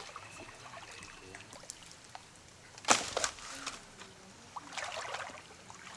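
Shallow pond water sloshing and trickling around people wading through it, with one sharp splash about three seconds in and a few smaller splashes after.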